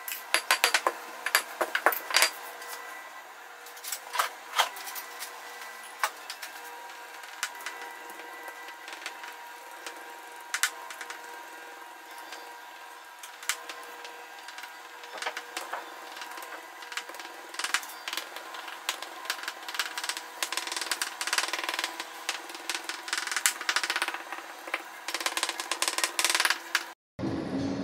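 A fork pricking a rolled sheet of mille-feuille (puff pastry) dough over and over to dock it, many quick light taps through the dough onto the mat and table, coming thicker in the second half. Before that, a few sharper clicks from the pastry wheel trimming the edges and being set down. A steady faint hum runs underneath.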